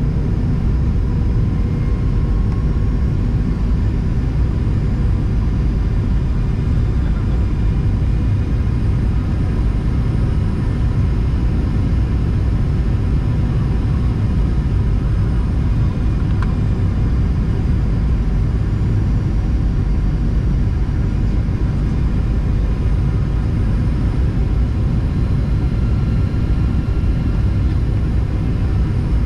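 Steady cabin rumble inside a Boeing 737-800 on descent, heard from a window seat over the wing: the CFM56 turbofans and rushing airflow, with a faint steady whine above the rumble.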